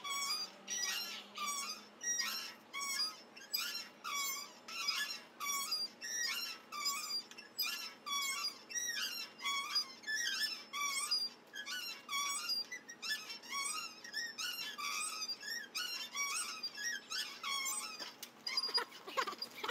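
Playground swing creaking on its chain hangers, a regular squeak at about two a second as it swings back and forth.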